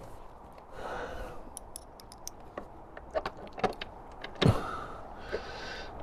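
Small metal bolts clinking and clicking as they are handled and started into the screen mounts, with bursts of rustling and a louder knock about four and a half seconds in.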